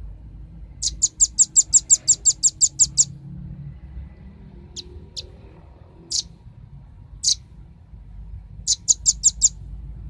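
Velvet-fronted nuthatch calling: a fast run of sharp, high chips, about seven a second for two seconds, then four single chips spaced a second or so apart, and a shorter run of about six chips near the end.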